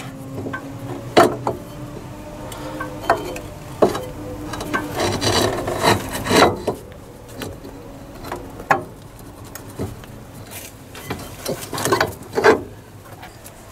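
Citroën ZX passenger-side driveshaft's outer CV joint being pushed by hand into the front hub and wheel bearing: metal parts rubbing and scraping as the splined shaft is worked through, with scattered knocks and clicks.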